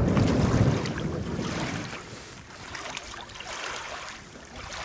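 Wind buffeting the microphone as a low rumble and rushing noise, loudest in the first second and easing off after.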